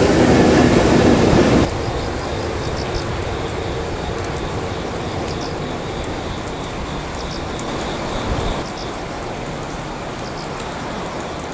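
JR Freight EH200 twin-unit electric locomotive passing close, a loud rumble of wheels on rail that cuts off suddenly about a second and a half in. After that the same locomotive runs slowly towards the listener, a quieter, steady rumble with a brief swell just past eight seconds.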